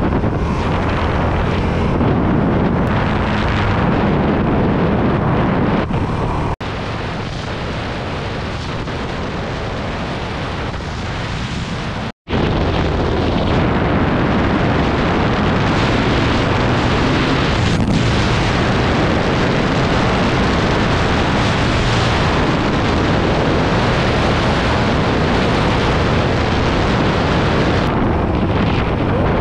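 Honda CRF450RL's single-cylinder four-stroke engine running under way, mixed with heavy wind buffeting on the microphone. The sound eases for a few seconds, cuts out for a moment about twelve seconds in, then engine and wind carry on steadily at speed.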